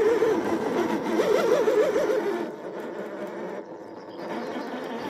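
Electric motor and gearbox of a radio-controlled Ford Bronco crawler whining, its pitch wavering up and down with the throttle. It is louder in the first half and drops off to a lower, steadier hum about halfway through.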